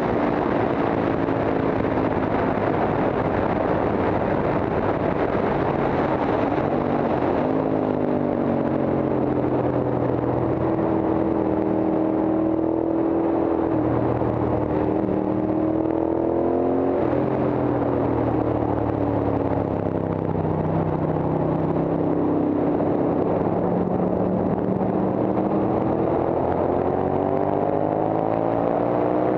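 Horvath Guzzi racing motorcycle's Moto Guzzi V-twin engine heard from on board at racing speed, with wind rush over it. The engine note climbs and falls with the throttle, dropping sharply about seven seconds in and again around seventeen seconds as the bike slows for corners, then rising again as it drives out.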